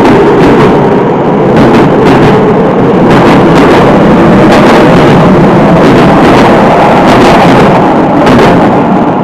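Tokyo Metro 05 series commuter train pulling out of the station and running past close by: a loud, steady rumble of wheels on rail, with repeated clacks as the wheels cross rail joints.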